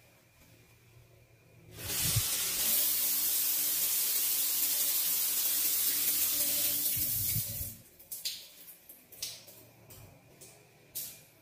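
Shower running: a steady hiss of spray that starts about two seconds in and stops about six seconds later, followed by a few light clicks and knocks.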